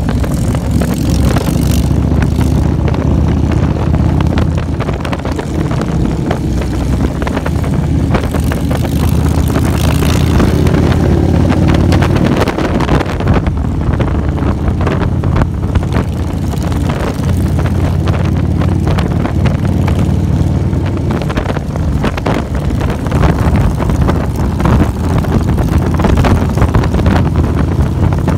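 Motorcycle engine running steadily at road speed, heard from the pillion seat, with wind buffeting the microphone. The engine note dips briefly about twelve seconds in.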